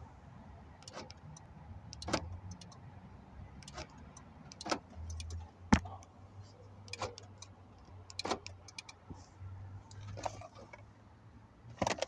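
A series of short, sharp clicks and clunks, about nine in all, the loudest about halfway through, as an aftermarket keyless-entry remote is pressed and the car's central door locks work, with the key fob handled in the hand.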